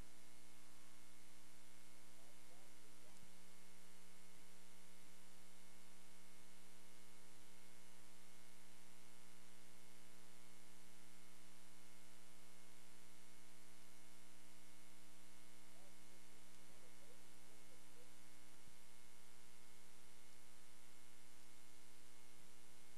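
Steady electrical mains hum and hiss, a buzzing stack of many even tones that does not change.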